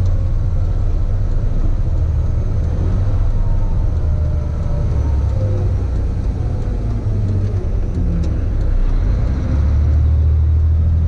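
Truck engine and road noise heard inside the cab of a Manitex 50128 boom truck on the move: a steady low drone that dips for a moment and grows louder near the end as the truck turns onto a new road.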